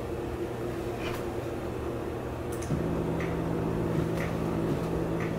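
Oscilloscope music playing: an electronic song whose left and right channels draw pictures on a scope in X-Y mode. It holds steady synthesizer tones, with a new low note coming in about halfway through and a light tick about once a second.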